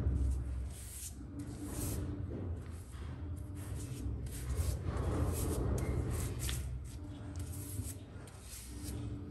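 Flat paintbrush spreading glue across a sheet of wallpaper in repeated short strokes, each a soft swish and rub of bristles on paper, over a low steady hum.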